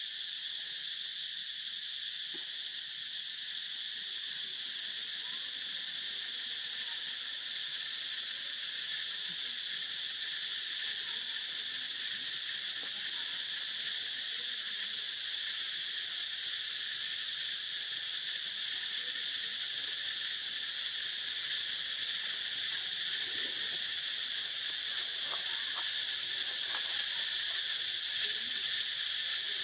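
Steady, unbroken drone of an insect chorus, the high, even buzz of many insects calling at once.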